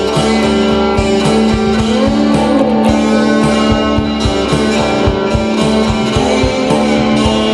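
Instrumental passage of a lofi psychedelic rock song: electric guitar with strummed chords and a few bending lead notes over a steady beat, no singing.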